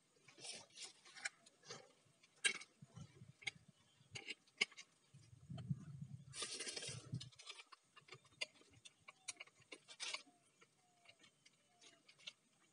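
Faint scattered clicks and knocks of small metal and plastic parts being handled as a chainsaw bar-and-chain attachment is fitted to an angle grinder, with a brief rustle and low rumble a little past the middle.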